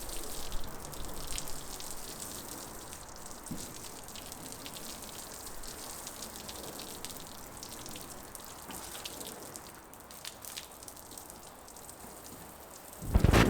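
Water spraying onto a van's steel body panel that has been lined with butyl sound-deadening mat, a steady pattering hiss like rain on a metal roof, as a test of how much the deadening quietens it. It grows to a much louder rush just before the end.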